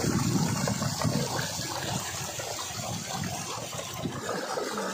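Water flowing steadily down a narrow earthen irrigation channel.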